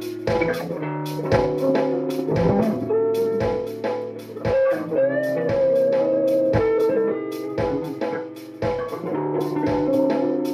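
Solid-body electric guitar playing sustained lead notes over a steady drum beat, with one note bent up and held with vibrato about five seconds in.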